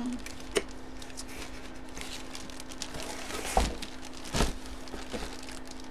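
Plastic bag around a packaged jersey crinkling and rustling as it is handled, with a few sharper knocks and clicks. A faint steady low hum runs underneath.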